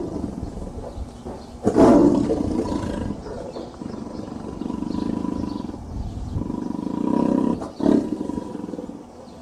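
Big cat roaring: a loud roar about two seconds in, then long low rumbling growls, and another short roar near the end.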